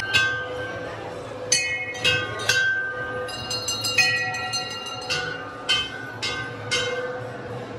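Hindu temple bells struck by hand several times at uneven intervals, each strike ringing on briefly in several clear high tones, over a faint steady hum.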